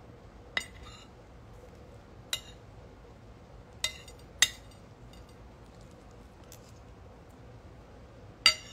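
A spoon or fork clinking against a plate during a meal, five separate sharp clinks that ring briefly: two spread over the first few seconds, two close together about four seconds in, and one near the end.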